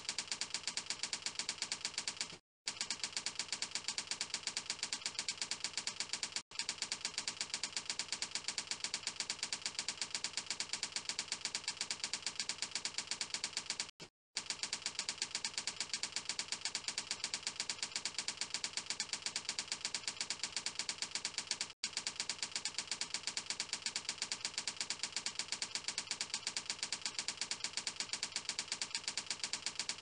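Typing sound effect: rapid, evenly spaced key clicks that keep pace with text typing out on screen. The clicks stop briefly four times.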